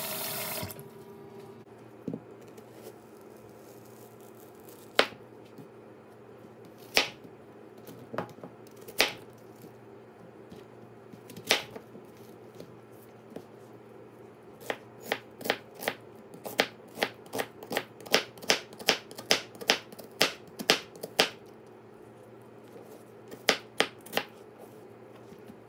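Tap water running into a tub stops just after the start. Then a chef's knife slices through onion pieces and knocks on a cutting board: a few single sharp taps spread apart, then a quick run of cuts about two a second, then two more near the end.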